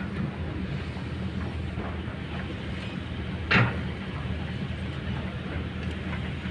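Kobelco hydraulic excavator's diesel engine running steadily under load as the boom and arm lift, with a single short sharp sound about three and a half seconds in.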